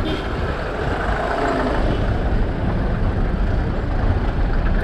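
Busy street traffic close by: car engines running and rumbling as vehicles crawl past.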